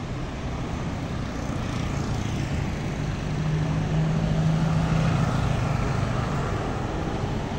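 Road traffic going past: a motor scooter's engine hum swells as it passes close by about halfway through, and a pickup truck drives by near the end.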